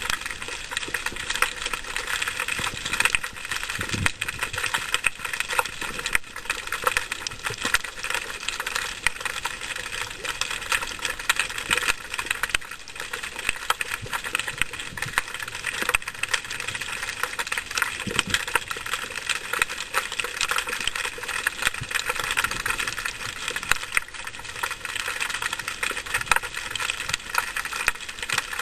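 Underwater crackling: a dense, steady stream of small clicks and snaps.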